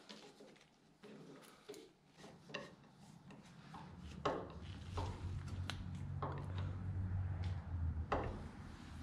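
Faint irregular metal clicks and scrapes of a long hand tool being worked at a tractor's steering box. A low steady hum comes in about halfway through and stops near the end.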